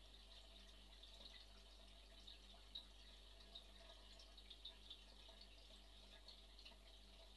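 Near silence: a faint steady low hum with scattered faint high ticks.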